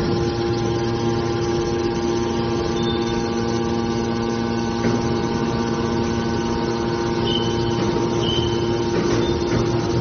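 Hydraulic power unit of a scrap car baler running, a steady pitched hum while the cylinders raise the baler's lid. A few short high-pitched tones sound in the last three seconds.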